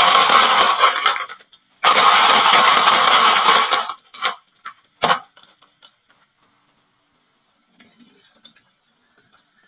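Many glass marbles rattling and clattering down a wooden marble-run slope, in two dense runs of about one and two seconds. Then a few separate clicks and one sharper knock as the last marbles drop and settle, followed by scattered faint ticks.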